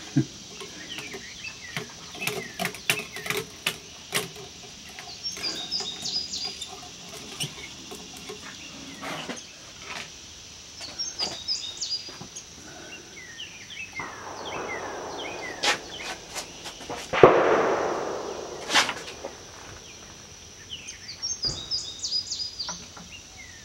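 Clicks and knocks of a working model cannon being handled and its barrel worked with a ramrod as it is readied between shots. Birds chirp in short bursts several times over a steady high-pitched whine, and two brief rushing noises come in the second half.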